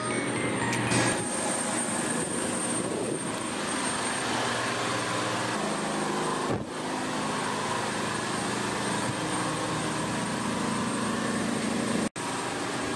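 Steady high whine and rushing noise of a parked Embraer E175 airliner's auxiliary power unit, heard on the apron and up the boarding stairs to the door; the sound cuts out for an instant near the end.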